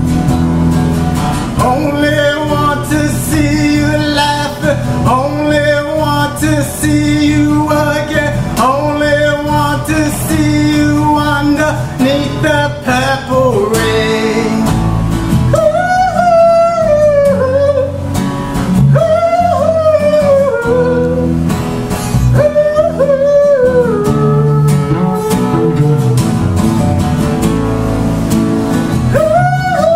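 A man singing a wordless melody over a strummed twelve-string acoustic guitar: short repeated phrases in the first half, then longer held notes that bend up and down.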